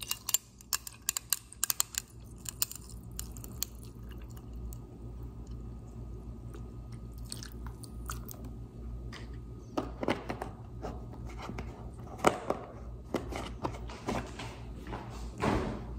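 A person chewing and crunching food close to the microphone: sharp crunchy clicks in the first few seconds and again from about ten seconds in, over a steady low hum.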